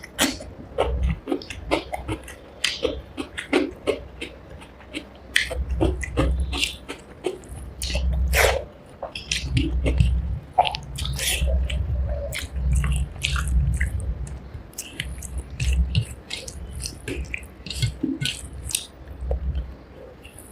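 Close-miked chewing of rice and fish curry, with many sharp mouth clicks and smacks over a low, uneven thudding of the chewing.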